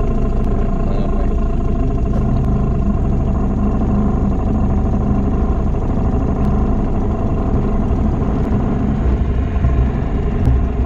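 Small boat outboard motor running steadily at cruising speed, the boat under way on the river.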